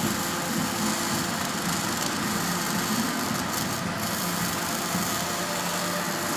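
Electric welding in progress: a steady buzzing hiss of the welding arc and machine, unbroken throughout.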